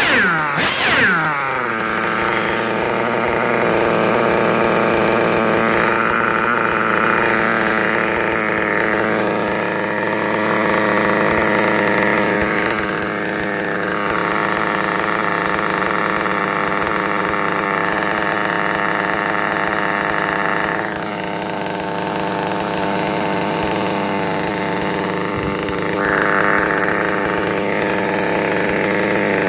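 Novarossi 28-7 .28 glow-fuel two-stroke model engine running on a test stand during its break-in, at a steady pitch. It sweeps down in pitch in the first second, then runs on with a few brief, slightly louder, brighter stretches.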